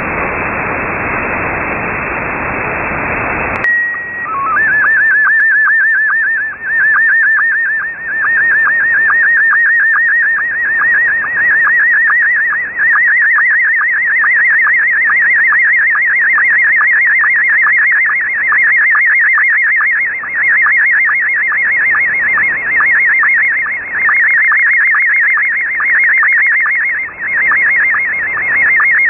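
Shortwave static hiss heard through a USB (upper sideband) receiver stops sharply about four seconds in, as a slow-scan TV signal starts. First comes a short steady tone with a brief low blip, the mode header. Then the fast, evenly repeating warble of a Scottie 1 SSTV picture being sent line by line.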